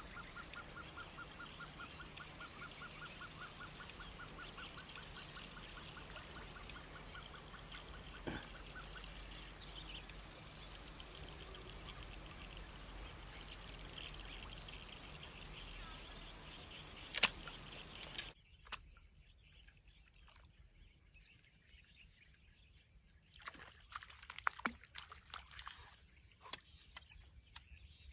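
A steady, high-pitched chorus of insects chirring, with rhythmic trains of chirps at other pitches laid over it; it cuts off abruptly about two-thirds of the way through. Afterwards there is faint outdoor ambience with a few small rustles and clicks.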